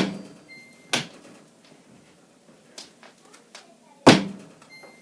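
Several sharp knocks and thuds of hard objects, the loudest right at the start, about a second in and about four seconds in, with a few lighter taps between.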